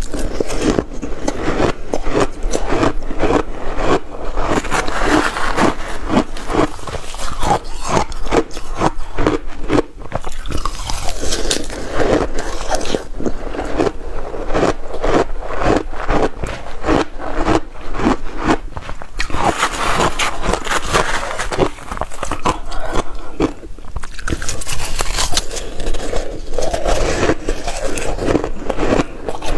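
Close-miked chewing of crushed ice with passion fruit pulp: dense, rapid crunching with a few short lulls.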